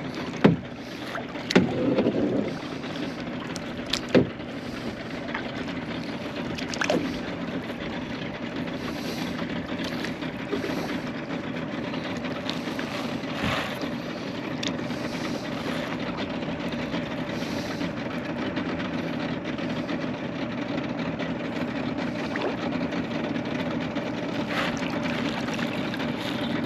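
Paddling a plastic sit-in kayak: the paddle sweeps through the water and water washes along the hull, over a steady low drone. There are a few sharp knocks in the first few seconds.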